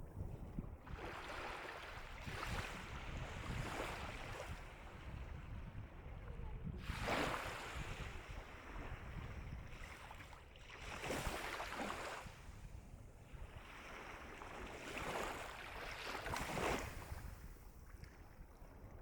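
Calm sea waves breaking and washing up the shore, a rushing swell about every four seconds, with a low wind rumble on the microphone underneath.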